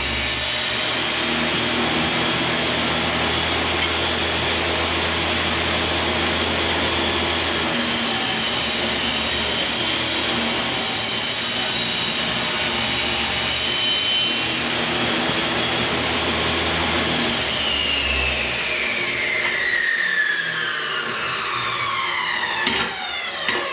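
Skilsaw portable table saw running as a wooden board is ripped lengthwise, with a steady loud whine of motor and blade cutting wood. About three-quarters of the way through, the saw is switched off and the motor winds down, its whine falling steadily in pitch.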